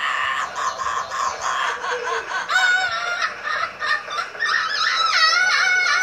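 Amazon parrot vocalizing: a run of quick chattering syllables, then from about halfway long, wavering, sung notes.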